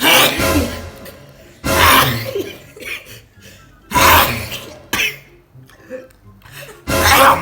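Four loud sneezes a couple of seconds apart, each a sudden explosive burst that trails off, set off by Unani nasal snuff powder.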